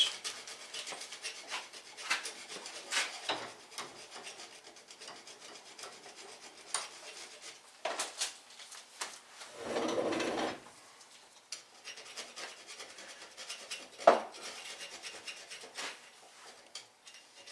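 Rustling and scattered light clicks of bearing boxes and parts being handled and sorted, with a louder rustle about ten seconds in and one sharp knock about fourteen seconds in.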